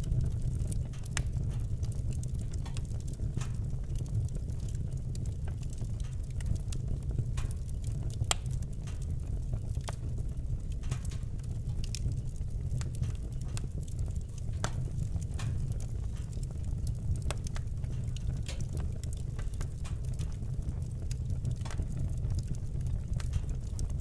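Wood fire burning in a fireplace, crackling with scattered, irregular sharp pops over a steady low rumble.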